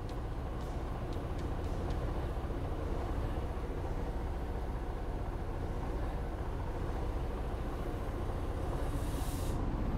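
Detroit DD15 diesel engine running at idle, heard from inside the truck cab, slowly getting louder as the engine speed comes up at the start of a forced DPF regeneration. A brief hiss comes near the end.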